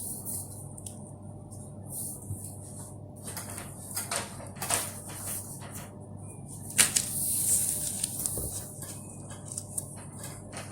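Spray hissing in short bursts, the longest about seven seconds in, with scattered clicks and knocks of handling and a steady low hum underneath.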